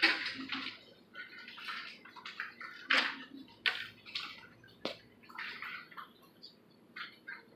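Scattered soft rustles of sheet-music pages and people shifting, with a few sharp clicks and taps, in a small room.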